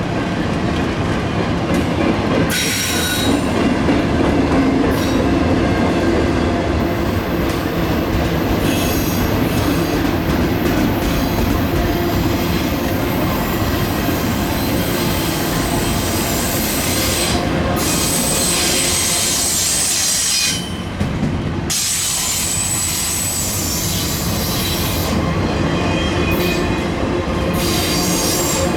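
Freight train cars rolling past at close range, a continuous rumble with high-pitched wheel squeal over it and a brief dip in the noise about two-thirds of the way through.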